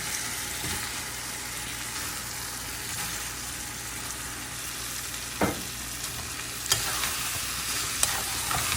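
Oil and spice paste sizzling steadily in a hot pan as pieces of dried fish (shutki) go in, with a few sharp knocks of the spatula against the pan about five and a half, seven and eight seconds in.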